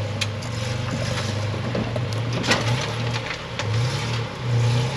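Off-road vehicle crawling over rocks: the engine runs low and steady while the tyres crunch on rock, with scattered sharp clicks and knocks.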